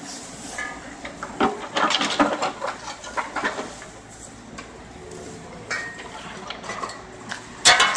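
Yanmar mini excavator digging: its steel bucket scrapes and clanks irregularly against soil and broken asphalt, loudest near the end, over the faint steady running of its engine.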